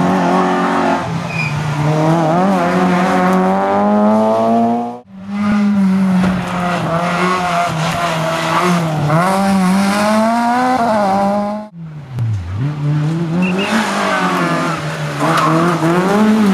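Three rally cars passing in turn, heard in three segments split by two sudden cuts about 5 and 12 seconds in. Each engine revs up and drops back repeatedly as the car brakes, shifts gear and accelerates through the junction.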